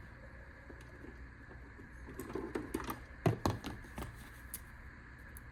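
Handling noises of something small being cut off: faint rustling, then a few sharp clicks, the loudest about three seconds in.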